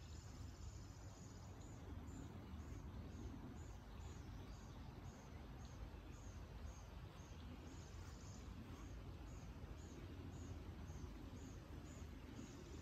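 Faint outdoor background: a short high chirp repeating about twice a second over a low steady rumble.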